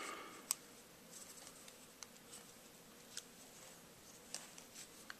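Small clicks and light handling of a Colt 1907 .45 ACP pistol as it is field-stripped by gloved hands: one sharp click about half a second in, then a few softer ones spread through, over a faint rustle.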